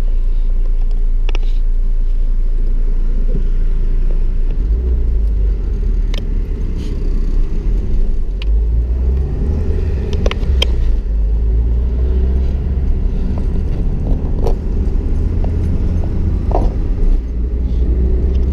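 Car engine and road rumble inside the cabin as the car moves off in stop-and-go traffic and drives on. The low rumble grows louder about four to five seconds in, with scattered light clicks and rattles.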